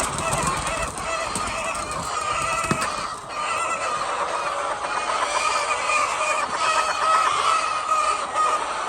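A large flock of chickens clucking and calling all at once, a dense, continuous chorus with no pauses.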